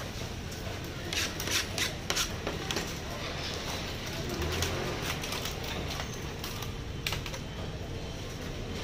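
Food-prep handling noise at a market fruit stall: sharp clacks and taps of a knife, cutting board and metal trays, in a cluster about one to two seconds in and once more near the end, over a steady background hum of the market.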